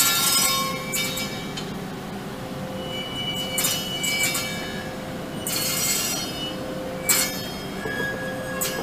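Steel wheels of slowly moving ÖBB class 1144/1044 electric locomotives squealing against the rails in the yard: repeated high-pitched squeals and screeches, some held as pure tones, over a steady hum.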